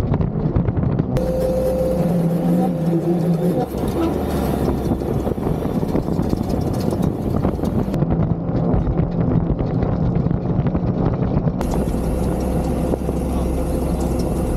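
Off-road vehicle engines running steadily, in several short clips that cut abruptly from one to the next.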